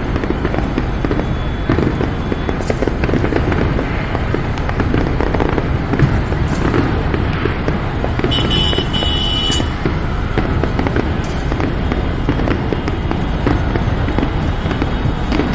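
Fireworks crackling and popping without a break, many small bangs close together, over a steady low rumble. About eight seconds in, a high-pitched tone sounds for about a second and a half.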